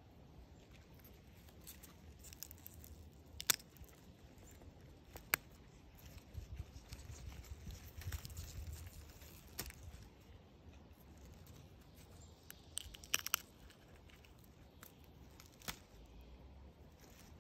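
Pea pods being snapped off the stems of a potted Tom Thumb dwarf pea plant by hand: a handful of sharp, spaced-out snaps with a quick cluster of them about three-quarters of the way through, over faint leaf rustling and a low rumble that swells in the middle.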